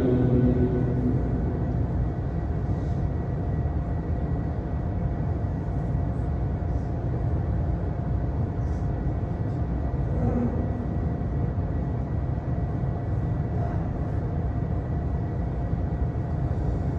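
Steady low hum of a large prayer hall's wall fans and loudspeaker system, with a faint steady whine above it.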